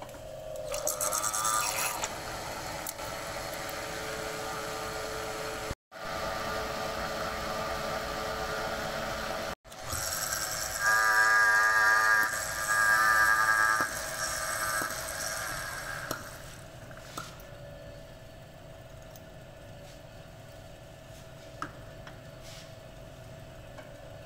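Metal lathe running while it machines a Fiat tractor hydraulic gear-pump body, with coolant on the cut and a steady motor hum. For a few seconds in the middle the cutting turns into a loud pitched ringing; after that the lathe runs on more quietly.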